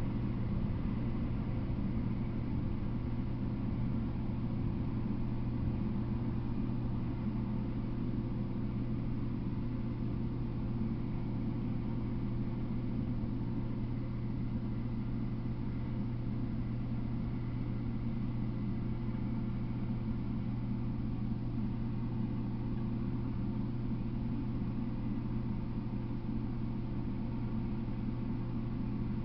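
A steady low mechanical hum that holds unchanged, with no rise or fall.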